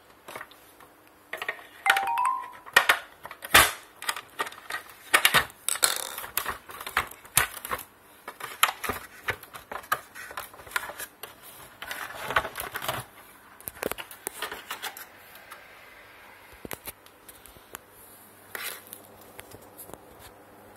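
Screwdriver working the screws on the plastic base of a rice grinder: irregular sharp clicks and knocks of metal on plastic, with a short rising squeak about two seconds in.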